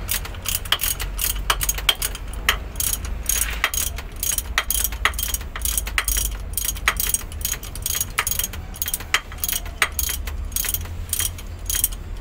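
Hand ratchet wrench clicking in quick, uneven strokes, turning bolts at the output end of a truck transmission, over a steady low hum.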